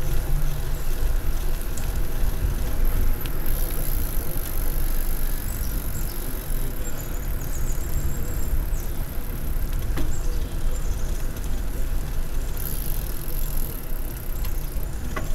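Bicycle rolling along a paved trail: wind buffeting a handlebar-mounted microphone over the tyre noise on asphalt, with a few sharp clicks from the bike, the clearest about ten seconds in.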